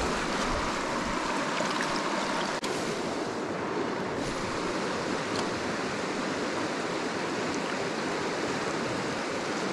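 Fast, shallow river running over rocks: a steady rush of flowing water.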